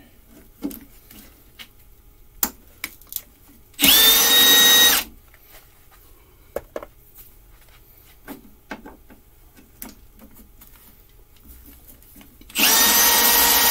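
Cordless impact driver run twice in short bursts of about a second each, whining steadily as it backs 3/8-inch bolts out of a steel push-mower deck. Light metal clicks and clinks come in between as the bolts and tool are handled.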